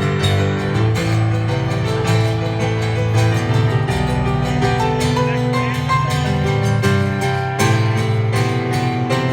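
Live band playing an instrumental passage without vocals: strummed guitar over bass and keys.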